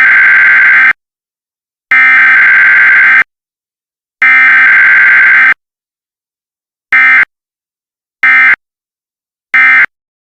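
Emergency Alert System SAME digital data bursts, a harsh buzzing screech. Three long header bursts of just over a second each are followed by three short end-of-message bursts, each cutting off abruptly.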